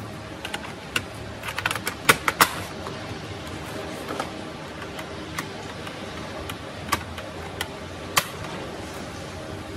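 Plastic clicks and snaps as the hard-drive bay cover is fitted onto the underside of a Sony Vaio laptop: a quick run of sharp clicks about two seconds in, then a few single clicks and taps as a screwdriver is set to its screws.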